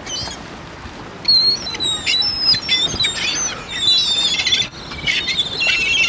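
A flock of gulls calling, many short high squawks overlapping, starting about a second in, as they go after food thrown to them.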